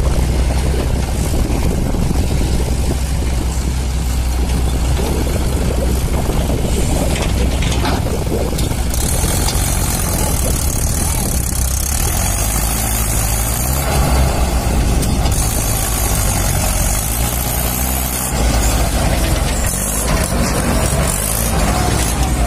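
Diesel engines running with a low, steady drone: a backhoe loader digging, and a Mahindra 585 DI tractor pulling away with a fully loaded trolley. A high hiss joins about nine seconds in and comes and goes.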